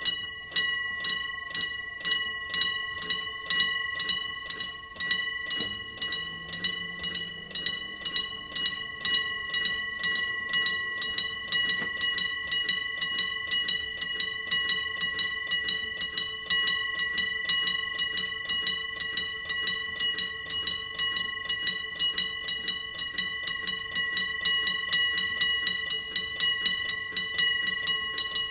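Electric-bell railway level-crossing alarm ringing continuously: a steady, even series of metallic strokes, about three a second, each leaving a bright ringing tone.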